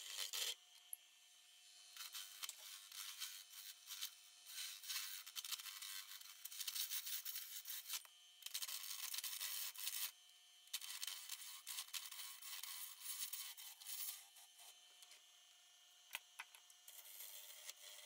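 Turning tool cutting into a spinning silver maple blank on a wood lathe, hollowing the end of a goblet: a hissing scrape that comes in bursts of one to three seconds with short pauses between cuts, over a faint steady hum.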